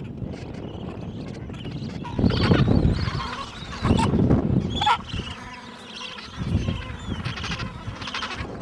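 Gentoo penguins calling: loud calls about two, four and six and a half seconds in, then a rapidly pulsing call near the end.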